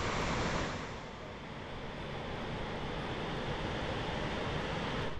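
Steady rushing noise of a rain-swollen, muddy mountain river in the gorge below, mixed with wind on the microphone. It drops in level about a second in and then slowly builds again.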